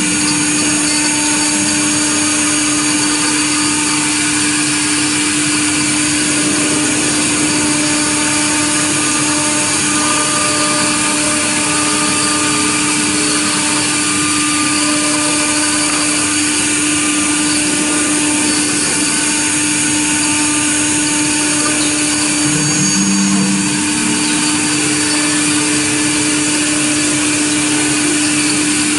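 CNC router spindle milling aluminium letters, running steadily with one constant tone over the hiss of the cut. A short lower tone sounds about 23 seconds in.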